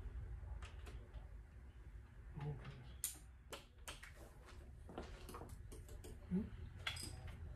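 Scattered sharp clicks of a wrench working the connecting-rod bolts of a Ford 351 Cleveland V8 as they are torqued, coming irregularly several times over a few seconds.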